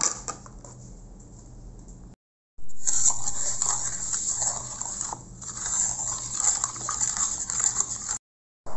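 Wooden spatula stirring raw mango puree and sugar in a hot pan. It makes an uneven scraping, squelching noise that starts about two and a half seconds in after a quieter stretch.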